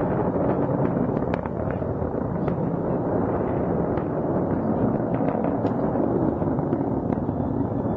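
H-IIA rocket's exhaust noise during ascent: a steady rumble with many sharp, irregular crackles scattered through it.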